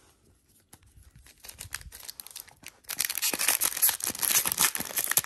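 Magic: The Gathering collector booster pack's foil wrapper being crinkled in the hands and torn open. Scattered small crackles at first, then dense, loud crackling and tearing from about three seconds in.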